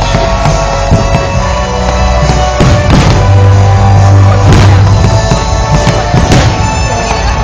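Loud music with drums and a heavy bass line, with several sharp firework bangs going off over it.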